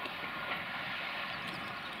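A passing regional passenger train: a steady rush of wheels on rail with a few faint high tones running through it.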